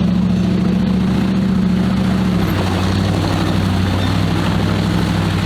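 Engine sound effect for a toy off-road Jeep, running steadily with a low hum. The pitch drops slightly about two seconds in.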